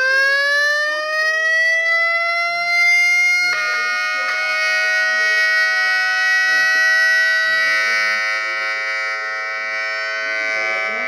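Outdoor tornado warning siren winding up. It rises in pitch over the first couple of seconds, then holds a steady wail at full pitch. Its sound changes abruptly about three and a half seconds in, into several steady tones together.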